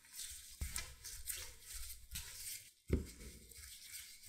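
Wooden rolling pin rolling out pie dough on a silicone baking mat: repeated soft rubbing strokes, with two low thumps, the louder about three seconds in.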